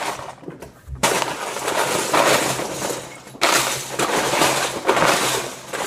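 Loose plastic Lego bricks clattering as hands dig and sift through a pile of them, in dense rattling spells that start suddenly about a second in and again past the middle.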